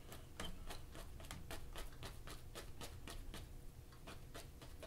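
Fan brush tapping against a stretched oil-painting canvas, dabbing highlight onto a painted evergreen: a quick run of light taps, about four a second, thinning out near the end.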